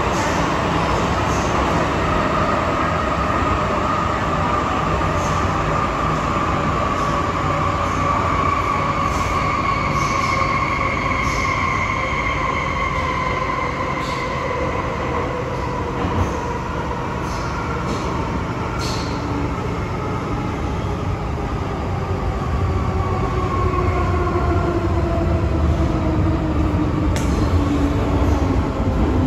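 MTR Kwun Tong Line M-train traction equipment whining in several tones that fall steadily in pitch as the train slows, over a steady rumble of wheels on rail with scattered clicks. This is the howling traction noise fans call 鬼叫, 'ghost howling'.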